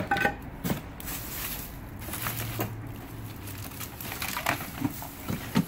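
Rummaging through a plastic tote bin: clothes and plastic bags rustle and crinkle, and items knock lightly against each other, in a string of short, irregular rustles and clicks.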